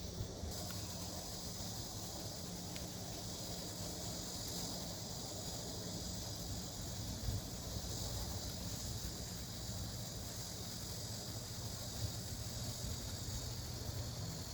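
Steady outdoor farm ambience: a continuous high-pitched chorus of insects such as crickets or cicadas, over a low steady hum.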